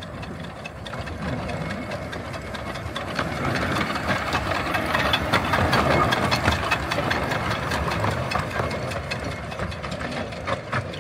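Small narrow-gauge steam locomotive 'Russell' running past, working steam with chuffing and mechanical rattle. It grows louder as it approaches, is loudest as it passes close about halfway through, then fades a little as it moves away.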